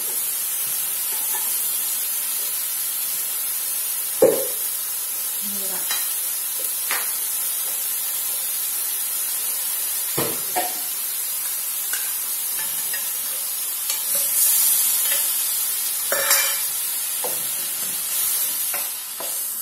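Mushrooms, garlic and canned tuna sizzling in oil in a nonstick wok, stirred with a wooden spatula. A few sharp knocks come through the steady sizzle, at about four, six, ten and sixteen seconds in.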